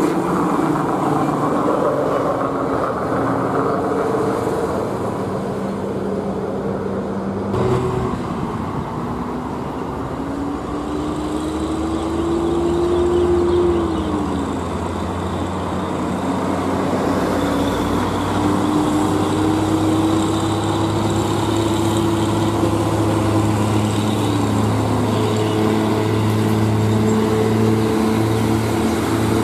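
Heavy diesel truck traffic, then a diesel truck engine pulling away under load, its pitch climbing in each gear and dropping at two gear changes, at about 14 and 25 seconds in. The pulling truck is an Isuzu tractor unit hauling a loaded trailer.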